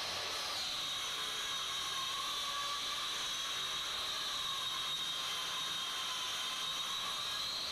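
Steady hiss with a faint high whistling tone that dips slightly in pitch early on and rises back near the end.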